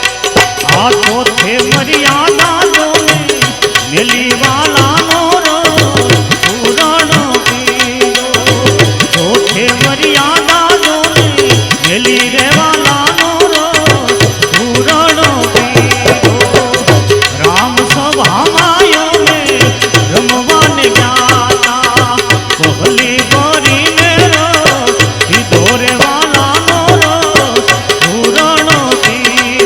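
Gujarati devotional folk song (a Ram bhajan) playing: a wavering melody over a steady hand-drum beat.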